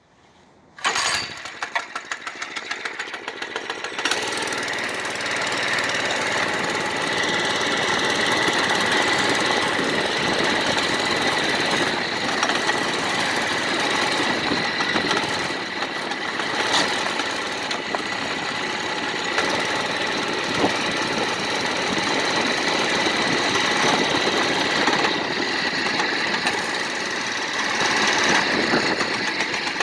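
Baja Doodle Bug mini bike's small engine starts about a second in and runs with a fast, even beat, then at about four seconds picks up and runs steadily as the bike is ridden along.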